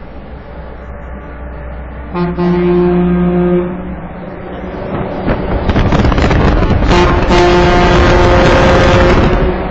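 Vehicle air horn sounding twice in a road tunnel. First a blast of about a second and a half, then a blast of about two seconds over a loud rising rush of noise, with the steady low drone of driving beneath.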